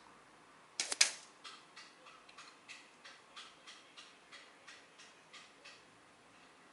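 A Hatsan Striker Edge air rifle fires once, a sharp crack about a second in, with a small click just before it. After it comes a run of short, evenly spaced high chirps, about three a second, fading out.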